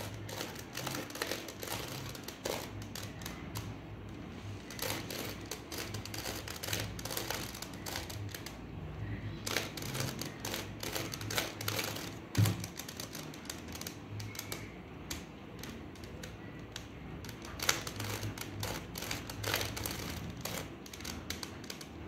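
Plastic 3x3 Rubik's cube being scrambled by hand, its layers turned quickly in a long run of rapid clicks, with one louder clack about twelve seconds in.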